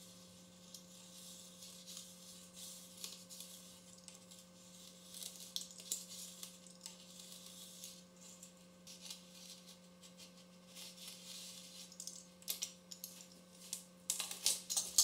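Faint scraping of a pizza cutter's wheel rolling through soft almond barfi on a silicone baking mat, with scattered light clicks and taps that get louder near the end, over a low steady hum.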